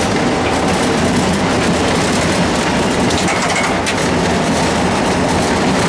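Cab noise of an Alco WDM-3A diesel locomotive under way: its 16-cylinder ALCO 251 diesel engine chugging steadily over constant wheel and rail noise.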